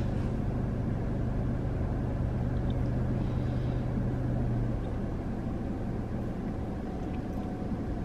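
Steady low hum of a car's cabin with the engine running at idle. A low droning tone in it drops away a little over halfway through, leaving a softer rumble.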